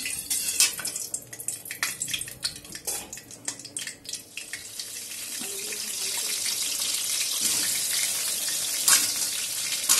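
Salted potato chunks frying in hot mustard oil in a metal kadai. At first there are scattered crackles of oil and spatula clicks. From about four seconds in a steady sizzle builds up and holds as the potatoes fry.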